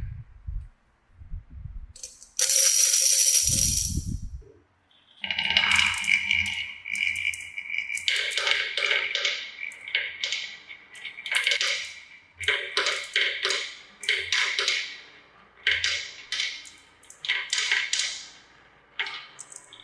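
Marbles rolling and clattering down a plastic marble-run track: a whooshing slide with low thuds early on, then a long run of irregular rattling clicks.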